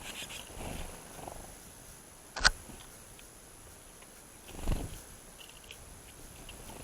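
A sharp single knock about two and a half seconds in and a duller thump near five seconds, over a low rumble and faint, short, high chirps of small birds.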